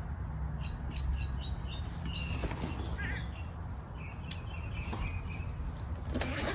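Small birds chirping over a steady low rumble, with a couple of light clicks as a nylon board carrying bag is handled and opened.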